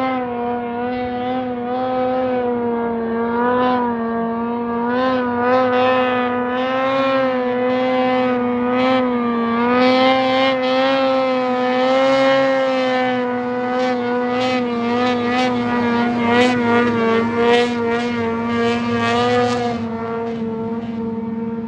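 Ski-Doo 600 RS snowmobile's two-stroke twin engine running hard at high, nearly steady revs while skimming across open water, a loud whine with small rises and dips in pitch. In its last several seconds the sound turns choppy with quick bursts.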